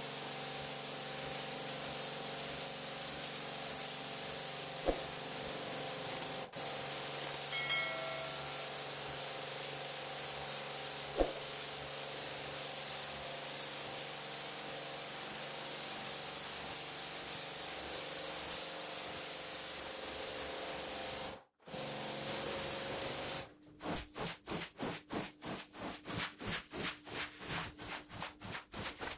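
A pressure washer sprays water across a soaked rug: a steady hiss with a faint machine hum underneath. Near the end it gives way to quick rhythmic strokes of a squeegee pushing water over the pile, about four a second, fast because the footage is sped up.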